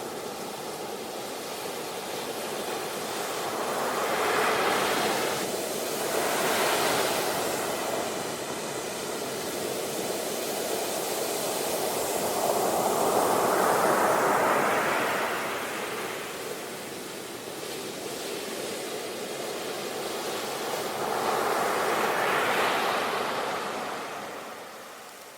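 Ocean waves breaking and washing ashore: slow surges of surf that swell and fade, four of them building to a peak and falling away.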